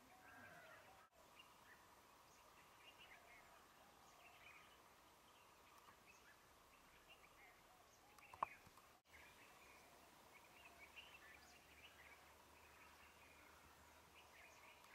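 Faint birdsong, many short chirps and calls from several birds, with a single sharp click about eight seconds in. The sound cuts out for an instant twice, about a second in and about nine seconds in.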